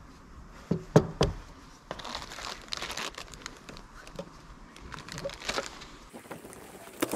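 Crinkly plastic bag of car-radio wiring harnesses rustling as it is handled, with clicks of the cables and plugs inside. About a second in there are three sharp knocks as the boxed head unit is set down on the table.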